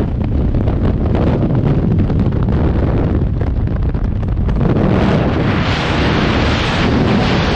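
Wind rushing over a skydiver's camera microphone during the descent: a steady, heavy low rumble of air, brightening into more hiss from about five and a half seconds in.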